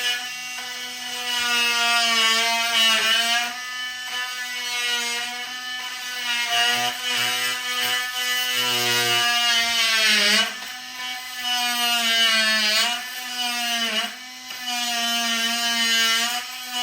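Power drill running in long stretches, its steady motor whine dipping in pitch several times as it loads up while driving screws into cabinets.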